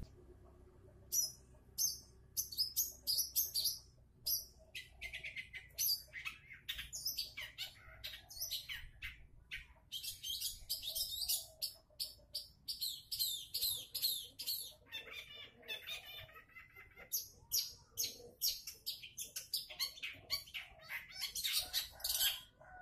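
Long-tailed shrike (cendet) singing: a long run of fast, high, scratchy chattering notes broken by brief pauses, starting about a second in.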